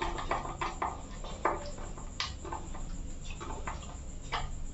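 A screwdriver tightening a terminal screw on the neutral link of an MCB distribution box: a scatter of small, irregular clicks and scrapes of metal on metal and plastic.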